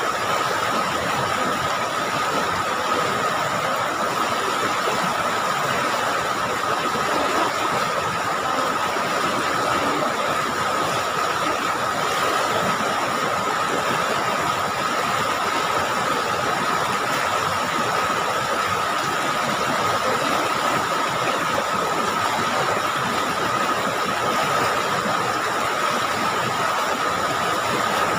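River rapids rushing steadily over rocks, with a thin high tone running through the noise.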